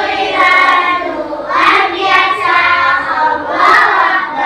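Group of young children singing together in unison.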